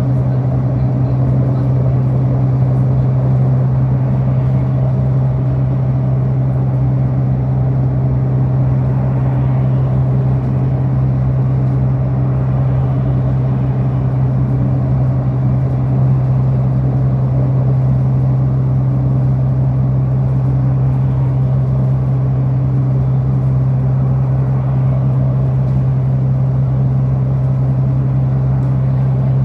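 City bus engine running at an unchanging pitch, a steady drone with an even rumble, heard from inside the passenger cabin.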